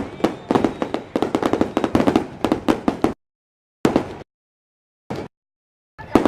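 Fireworks exploding in a rapid string of sharp bangs and crackles that cuts off abruptly about three seconds in, followed by three brief bursts of bangs separated by dead silence.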